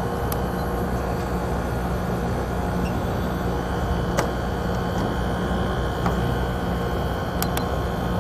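Outdoor unit of a 2-ton split air conditioner running, its compressor giving a steady low hum under the condenser fan's even whoosh, with a few faint clicks. The unit is low on refrigerant gas, so the compressor is drawing only about 7.5 amps instead of 12, and the indoor display shows an E4 error.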